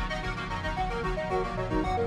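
Background music: an electronic track with a stepping synthesizer melody over a steady beat.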